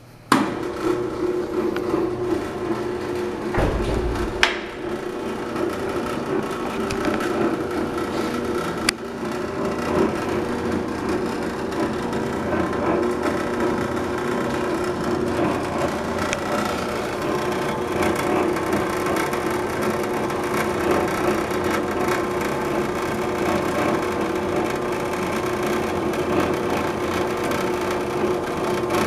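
Wellsaw Model 8 horizontal band saw, driven by a 1 hp three-phase Westinghouse motor, running steadily with its blade cutting through a wooden block. There is a low thump about four seconds in and a couple of sharp knocks, the second about nine seconds in.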